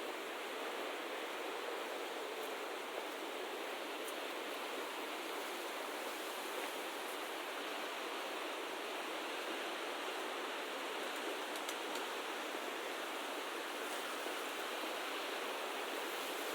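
A steady, even rushing noise with no breaks, in the manner of flowing water or wind.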